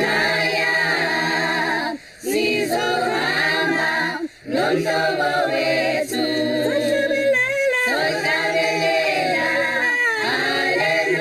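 A choir singing a cappella in several voice parts, with two short breaks about two and four seconds in.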